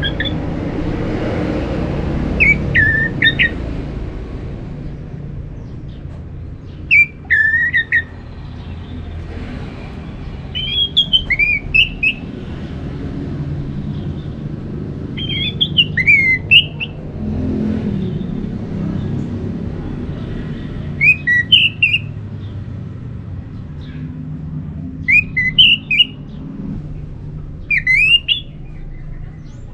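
Orange-headed thrush singing short phrases of rising and falling notes, repeated every three to five seconds, over a low background rumble.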